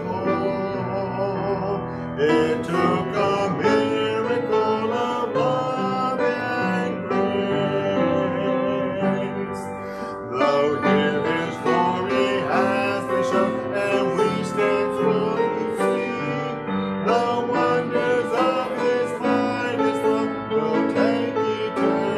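A gospel hymn sung with piano accompaniment, the singing voices holding wavering notes over the keyboard.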